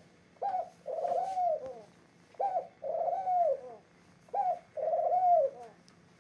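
Male domestic pigeon cooing three times, about two seconds apart. Each coo is a short note followed by a longer note that rises and then falls away.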